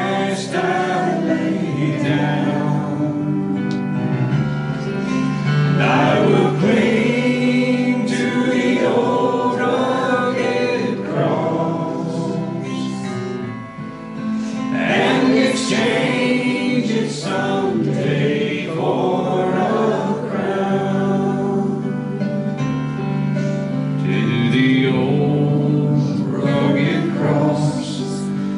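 A congregation singing a slow hymn together in long held phrases, with a brief dip between lines about halfway through.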